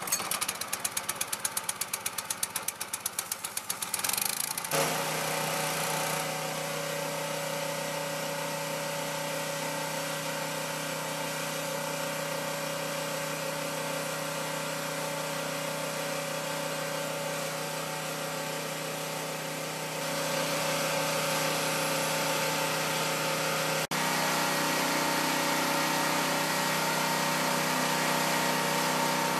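Hyundai HYW2500P petrol pressure washer engine pull-started, with a rapid ticking chatter for about four seconds before it settles into a steady run. The water jet hisses over the engine, louder from about twenty seconds in.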